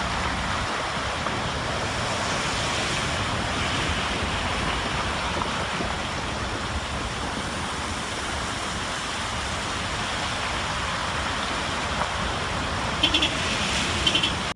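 Heavy rain and traffic splashing through flood water on the road: a steady rushing noise of water and tyres. Near the end, two brief bursts of short beeps.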